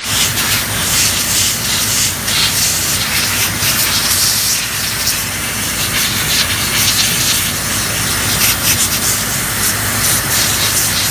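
A jet of compressed air hissing loudly and steadily into an open desktop computer case to blow out dust, the rush wavering as the jet plays over the parts.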